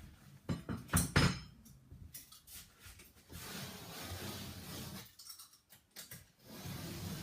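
Old sheetrock being torn out: sharp cracks and snaps of breaking drywall about a second in, then longer stretches of crumbling gypsum and tearing paper facing.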